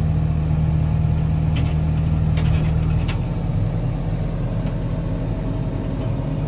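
JCB 4CX backhoe loader's four-cylinder diesel engine running steadily, heard from inside the cab. Its hum eases off a little about three seconds in, with a few faint clicks.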